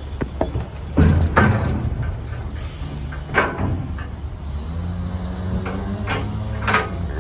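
Cattle shifting about in a metal livestock trailer: a few sharp knocks and clangs of metal, the loudest about a second in, over a steady low hum.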